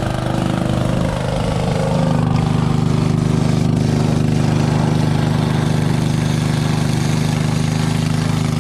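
Small portable engine-driven water pump running steadily, drawing water out of a pit through a suction hose.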